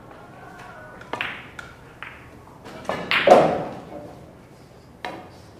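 Billiard balls and cue clicking in a carom billiards hall: a handful of sharp, separate clicks, the loudest a little past the middle ringing on in the hall, and another sharp click near the end.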